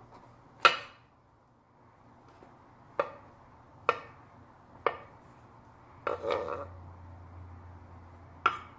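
Kitchen knife slicing oyster mushrooms on a wooden cutting board. There are single sharp knocks of the blade on the board about a second apart, with a short flurry of cuts about six seconds in and one more knock near the end.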